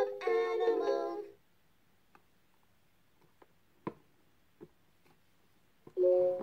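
LeapFrog 100 Animals Book electronic toy's speaker finishing a short tinny tune, which stops a little over a second in. A few faint plastic clicks follow as the book's cover is opened, and a new electronic tone starts near the end.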